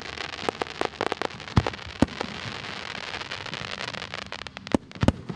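Aerial fireworks: a dense crackling hiss full of rapid pops, which dies away about four and a half seconds in. Louder bangs come about two seconds in and again near the end.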